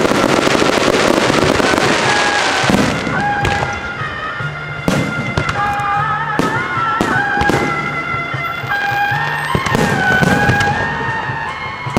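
Aerial fireworks bursting, starting with a dense crackling barrage and then thinning out to single sharp bangs every second or two. A melody of music plays under them throughout.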